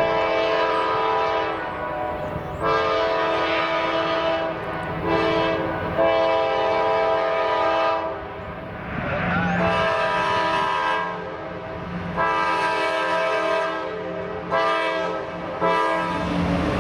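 Diesel locomotive air horn sounding the grade-crossing signal, long, long, short, long, twice over, with the train's rumble underneath.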